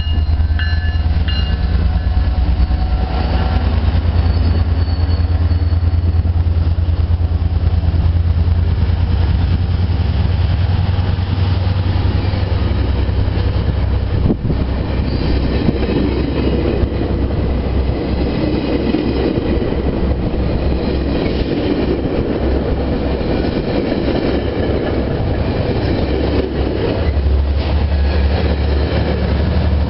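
A GO Transit F59PH diesel locomotive's 12-cylinder EMD 710 engine drones low as the train pulls out, then ten bilevel coaches roll past with a steady rush of wheel-and-rail noise and some clickety-clack. Near the end a low locomotive engine drone grows again.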